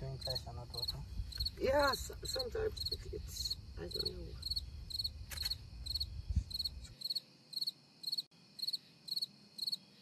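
Crickets chirping at night, a steady run of short high-pitched chirps, about two a second.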